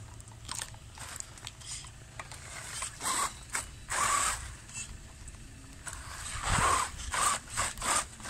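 Wltoys 12428 RC crawler driven over rough dirt: irregular bursts of scraping and crunching with some mechanical rattle, loudest about three and four seconds in and again in a cluster near the end.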